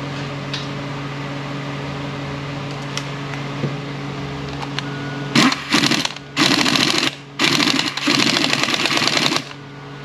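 Pneumatic impact wrench with a 13 mm socket running a bracket bolt down on a 231J transfer case, rattling in four bursts that start about five seconds in, the last two longer, over a steady shop hum.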